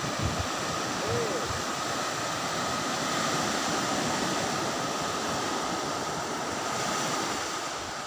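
Sea surf breaking and washing up a flat sandy beach: a steady hiss of waves and foam.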